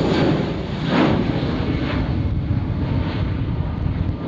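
Airliner taking off, its engines giving a steady low rumble with a broad hiss above it that slowly thins out as the plane draws away.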